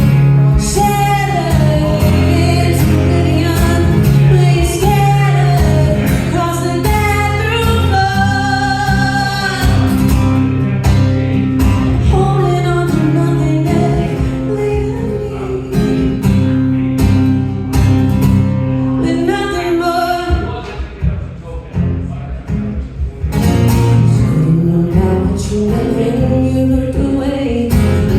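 A woman singing a slow original song live with acoustic guitar accompaniment. The music drops quieter for a few seconds about three-quarters of the way through.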